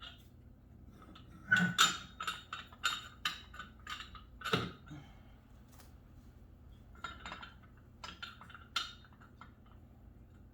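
Metal hardware clinking as a nut is worked onto a bolt while assembling an exercise bike frame: irregular sharp clinks and ticks in small clusters, some ringing briefly.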